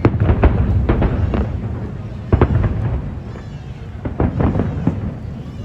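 Aerial fireworks bursting in a rapid, irregular series of sharp bangs over a continuous low rumble. The loudest bursts come at the start and again about two and a half seconds in.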